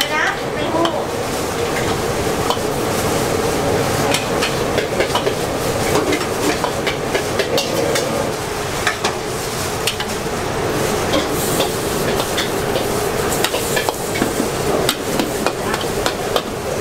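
Metal spatula scraping and clinking against a steel wok as noodles are stir-fried, with many short sharp clicks over a steady sizzle of frying.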